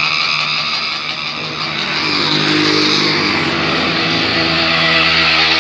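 Motorcycle engines running and revving as bikes ride past close by, one of them wheeling on its rear wheel. The engine note strengthens about two seconds in, over a steady rushing noise.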